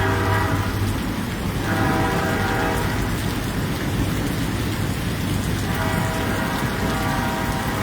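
Freight train's air horn blowing a steady chord, fading out about a second in and sounding again near the end, over steady rain.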